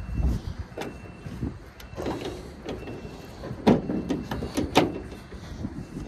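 Heavy steel hood of an old Mack fire truck being unlatched and raised: a handful of irregular metal clanks and knocks, the loudest a little past halfway.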